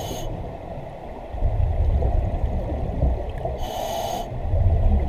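Diver breathing underwater through a 1950s Mistral double-hose scuba regulator: a short hissing inhalation with a faint whistle at the start and again about three and a half seconds in, each followed by a low bubbling exhalation.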